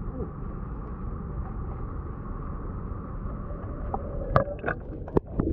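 Steady low outdoor rumble, then from about four seconds in several sharp splashes and knocks from koi flapping in a plastic basin.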